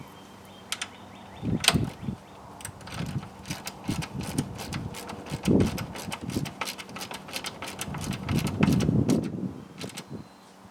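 Irregular light metallic clicks and a few dull clunks of a bolt being threaded in with hand tools.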